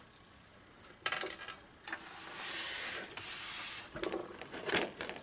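Sheet-metal cover of a welding machine being lifted and slid off its chassis: a knock about a second in, then a scraping slide lasting nearly two seconds, then a few light knocks and clatters.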